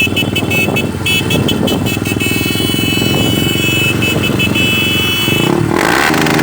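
Honda XR250 Tornado single-cylinder four-stroke engine with an aftermarket ProTork Core3 sport exhaust, held at the rev limiter: the ignition cut makes the exhaust note stutter rapidly on and off. Music comes in near the end.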